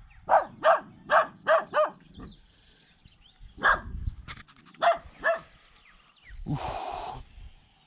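Farm dog barking: a quick run of five barks, then three more a couple of seconds later.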